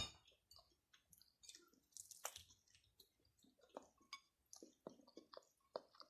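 Faint, close-up chewing: a person eating with soft, irregular wet smacks and mouth clicks.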